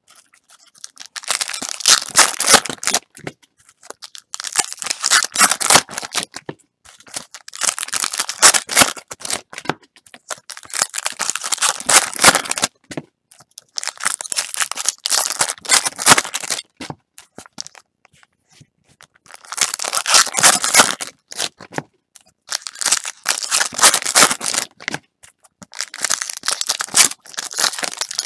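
Baseball card pack wrappers being torn open and crinkled one after another, in about eight crackly bursts roughly three seconds apart.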